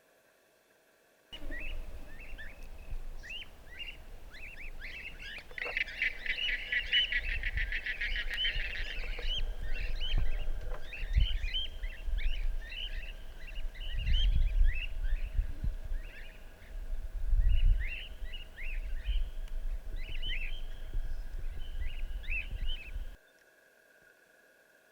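A flock of wild cockatiels and galahs calling, with many short chirps that are thickest a few seconds in, over a low rumble of wind on the microphone. The sound begins abruptly just over a second in and cuts off shortly before the end.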